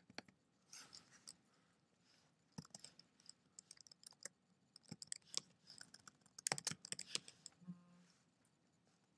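Faint keystrokes on a computer keyboard with mouse clicks, in irregular clusters.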